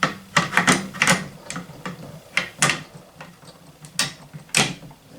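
Metal-on-metal clicks and clacks from the bolt carrier of a Barrett Model 95 .50 BMG bolt-action rifle as it is worked back into line to go back in. There is a quick cluster of clicks in the first second, then a few sharper single clicks spread out.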